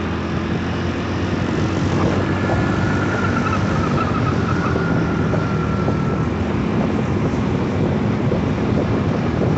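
The Clash 200's EFI engine running smoothly and steadily while cruising, with wind rush over the microphone.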